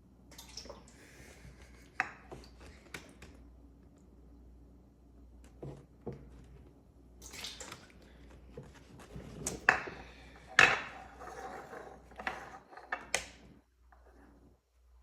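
Measuring cups and utensils clinking and knocking against a mixing bowl while milk is measured into it: a string of scattered sharp knocks and clinks, the loudest about two thirds of the way in.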